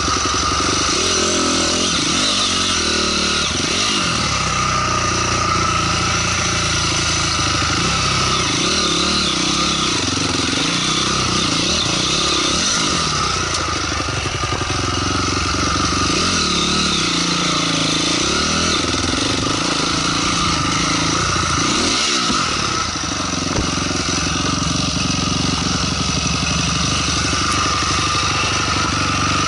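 Honda CRF250R's single-cylinder four-stroke engine running at low revs, its pitch rising and falling again and again as the throttle is opened and closed over rocky ground.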